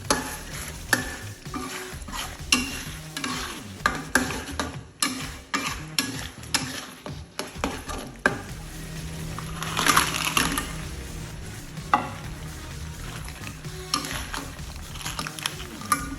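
Crabs being stir-fried in a pan: a spatula scraping and knocking against the pan as they are tossed, over sizzling oil. A longer hiss of sizzling swells about ten seconds in.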